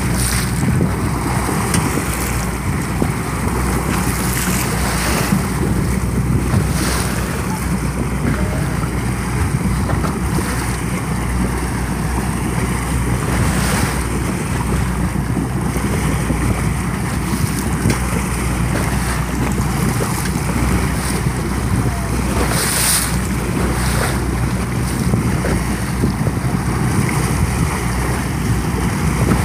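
A boat running under way: a steady low engine drone over rushing water. Wind buffets the microphone in gusts every few seconds.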